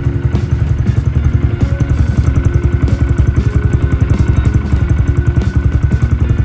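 Honda Grom 125cc single-cylinder engine idling steadily through a Yoshimura R-77 Cyclone exhaust, an even, fast pulsing beat.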